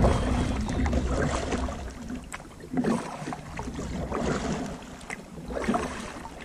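Water splashing and sloshing around a small boat under way on a canal, in uneven strokes with no steady engine tone.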